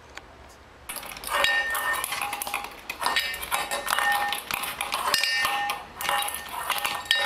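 Stainless steel bowl clattering and ringing on a tile floor as a cat paws and pushes it, starting about a second in and going on in repeated clanks.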